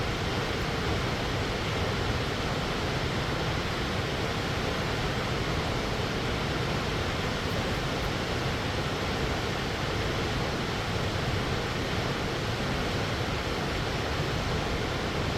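Waterfall rushing: a steady, even wash of falling water with no breaks or changes.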